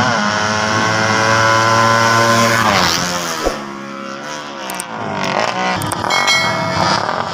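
Racing motorcycle engine at full throttle, its pitch climbing steadily and then dropping sharply at each gear change. It fades a few seconds in, and engine revving builds again near the end.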